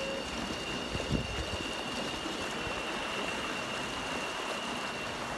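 Small electric inflatable tender under way: a steady rush of water and wind noise, with a steady high-pitched whine running through it.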